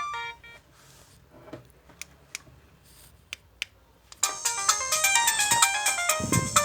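LG MG160a mobile phone alarm tones: a short melodic tone breaks off at the start, a few faint clicks follow, and about four seconds in a new polyphonic alarm melody starts and plays on loudly. A brief low thump sounds near the end.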